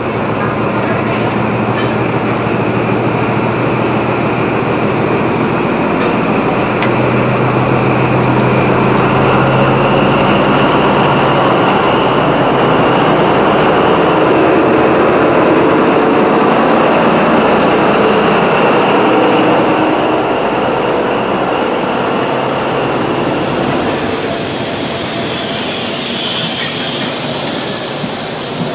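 Class 43 HST power car's diesel engine running as the train pulls away and passes close by, loudest as the power car goes past. It then fades into the rolling noise of the Pullman coaches near the end.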